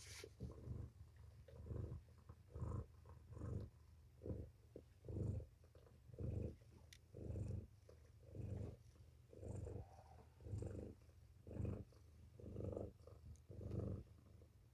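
Mother cat purring while she nurses and is stroked, a low rumble that swells and fades with each breath, about once a second.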